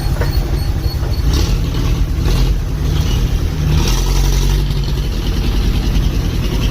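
Bus diesel engine running with a steady low rumble, with short hisses at about one and a half, two and a half and four seconds in.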